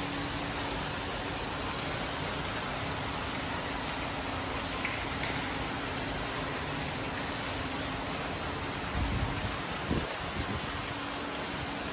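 Steady rushing hiss with a faint low hum running under it, and a couple of low thumps about nine to ten seconds in.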